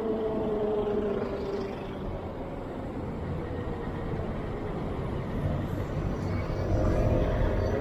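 Street traffic heard from a moving bicycle: a motor vehicle passes in the first two seconds, its engine note falling in pitch as it goes by, over steady road noise. Toward the end another vehicle comes close and the rumble grows louder.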